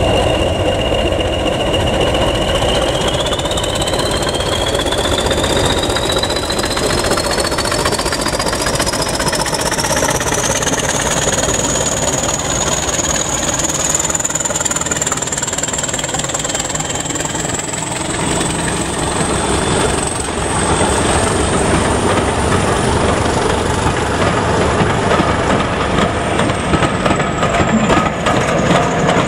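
Two English Electric Class 20 diesel locomotives pulling away under power, their engines running loud with a high whistle from the turbochargers rising slowly in pitch as they accelerate, then dropping near the end. Coaches start rolling past towards the end.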